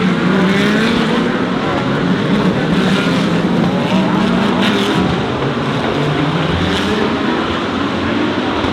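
DTM GT3 race cars running on the circuit, engine notes rising and falling as they pass and accelerate.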